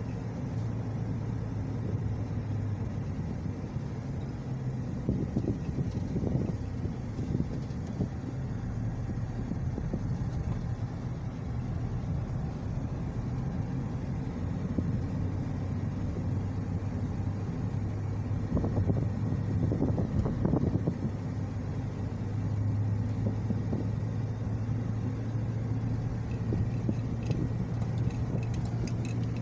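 Car driving along, heard from inside the cabin: a steady low engine drone under tyre and road noise, swelling a little in places.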